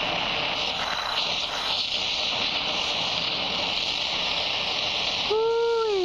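Cutting torch flame burning with a loud, steady hiss, played into a clay crucible to remelt the glassy borax flux that is trapping the gold.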